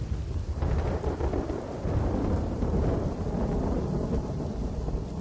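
Outdoor noise of rain and wind buffeting the microphone: a steady low rumble with a hiss over it.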